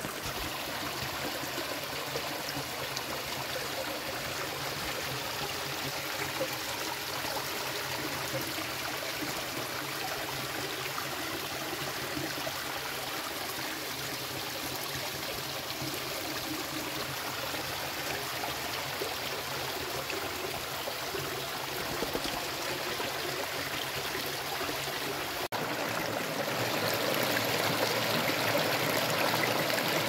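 Shallow stream of clear water flowing and trickling over stones, a steady rushing splash. About 25 seconds in it changes suddenly and becomes a little louder and brighter, with water running down a narrow channel between boulders.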